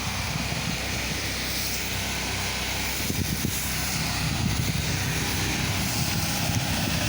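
Pressure-washing rig's engine running steadily, with the hiss of cleaning solution being sprayed onto concrete as a pre-treatment.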